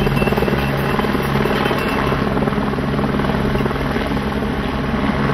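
A helicopter's rotor chopping steadily overhead, with a steady low hum, as team support cars drive past close by.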